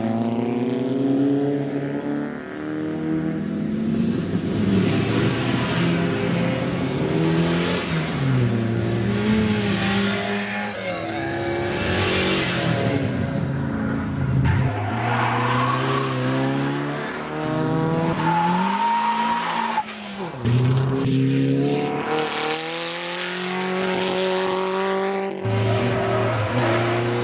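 Race-driven cars on a track, engines revving hard with the pitch climbing and dropping again and again as they shift through the gears, and tyres squealing at times through the corners.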